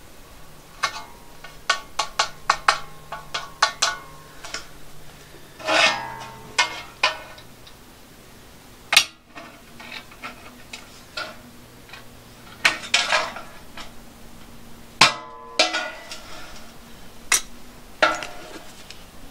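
Aviation tin snips cutting painted steel corner trim along a seam: crisp snips, a quick run of about a dozen in the first few seconds, then more in short groups with pauses between.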